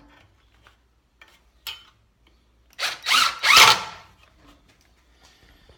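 A tool at work on a metal electrical box: a click, then about a second of loud whirring, rattling bursts, three in quick succession.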